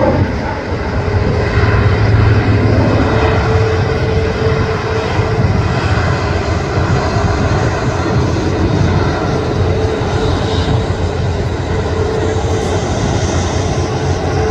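An ATR twin-turboprop airliner with six-blade propellers, its engines at takeoff power as it lifts off and climbs out. The sound is a steady, loud drone with a constant propeller hum over it.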